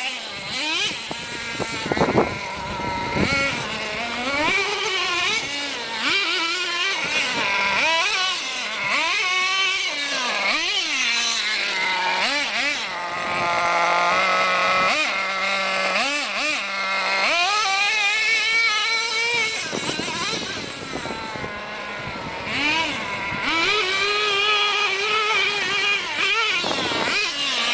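Tamiya TNX 5.2 nitro RC monster truck's small glow engine running high-pitched, revving up and down again and again as the throttle is worked. It settles to a steadier, lower note for a few seconds midway.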